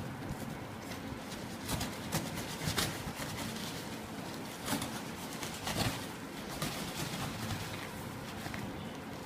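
Scattered sharp knocks and rustles of damaged shipping packaging being handled and opened, with birds calling low in the background.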